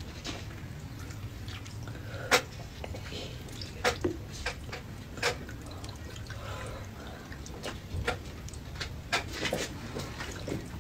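Eating sounds: irregular wet clicks and smacks from chewing and from wide flat noodles being lifted out of soup with chopsticks, over a low steady hum.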